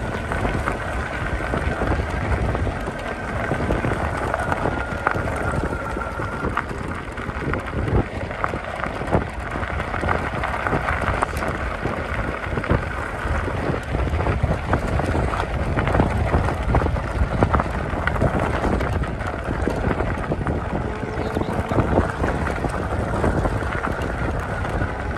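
Electric fat bike riding along a gravel road: the wide tyres crunch over the gravel with frequent small rattles and knocks, and wind buffets the microphone. A faint high whine comes through near the start and again near the end.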